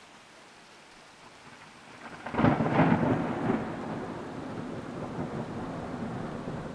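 Heavy rain hissing steadily. About two seconds in, a close thunderclap breaks with a few sharp cracks and rolls on as a rumble that lasts to the end.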